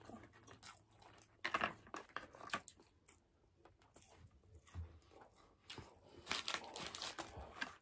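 Faint eating sounds: chewing, with the crinkle of paper food wrappers and plastic condiment packets, in short scattered bursts that get busier near the end.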